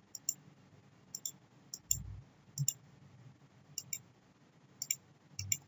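Computer mouse clicking, short sharp clicks that mostly come as quick press-and-release pairs, about seven times a second or so apart. A faint low thump comes about two seconds in and again near the end.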